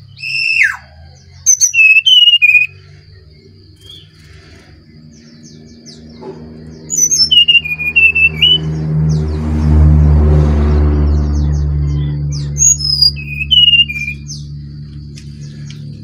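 Brown-chested jungle flycatcher singing in four short bursts of sharp whistled phrases: one near the start, one around two seconds in, one about halfway, and one near the end. A thin high steady tone runs underneath, and a low rumble swells and fades in the middle.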